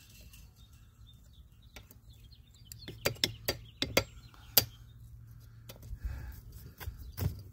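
Sharp metallic clicks and taps of pliers working the pin at the axle end of a garden cart's wheel hub: a quick run of about half a dozen clicks from about three seconds in, and a few more near the end.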